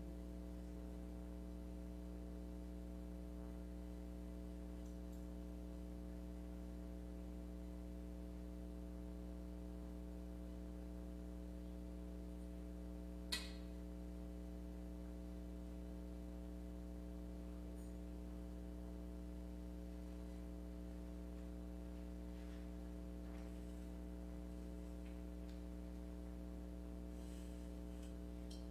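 Steady electrical mains hum: a low buzz with a stack of steady overtones. A single sharp click sounds about halfway through.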